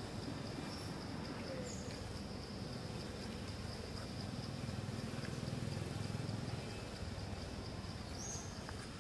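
Steady high insect drone over a low rumble of outdoor background, with a short high falling chirp about two seconds in and another near the end.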